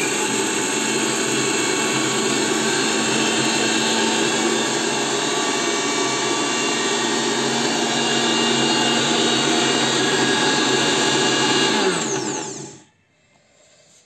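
Usha mixer grinder's motor running loud and steady, its small steel jar grinding roasted cumin seeds to powder. About twelve seconds in it is switched off and winds down with a falling whine.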